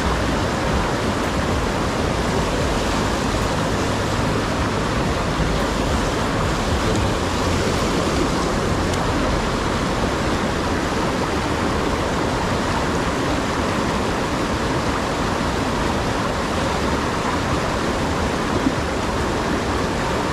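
Shallow, rocky stream rushing over a riffle of stones: a steady, even rush of water.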